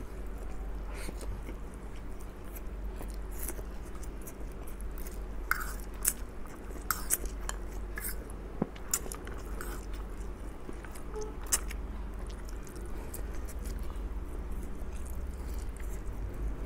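Close-up mouth sounds of a man eating instant fried noodles (mie goreng): slurping strands in and chewing, with short wet clicks and smacks scattered throughout, most frequent in the middle of the stretch.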